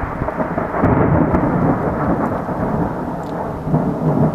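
Thunder from a nearby lightning strike, rumbling loudly and swelling about a second in, with rain falling.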